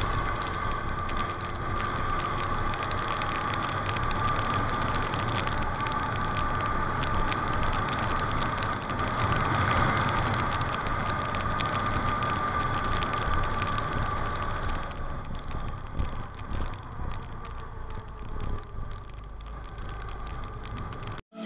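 Driving noise from a moving vehicle picked up by its mounted camera: a steady hum and road noise with a constant high tone and fine rattling. It eases in the last few seconds and cuts off abruptly just before the end.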